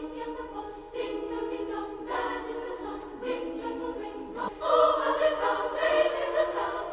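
Choir singing slow, held chords on the soundtrack, swelling louder about four and a half seconds in.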